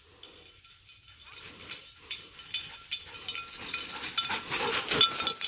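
A search dog running across dry leaf litter, its paws crunching and rustling the leaves, growing louder as it closes in over the last couple of seconds, with light metallic jingling.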